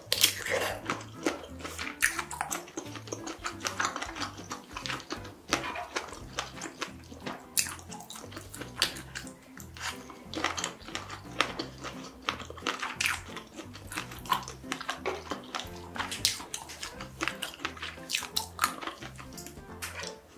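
Wet, sticky chewing and biting of saucy food, heard close up as a run of irregular sharp mouth clicks. Background music with a low stepping bass line plays under it.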